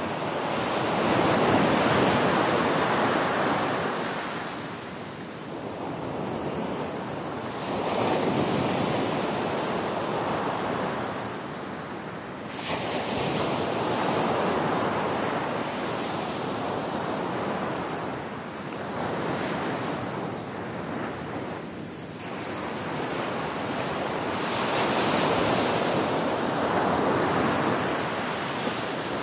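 Ocean waves washing onto a shore, each surge swelling and then fading away, about one every five seconds.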